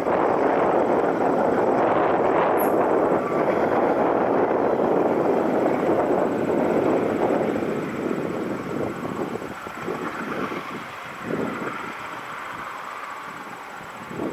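Double-stack freight train rolling past, a steady loud rumble of wheels on rail with a brief high wheel squeal about two and a half seconds in, then fading away over the second half with scattered wheel clacks.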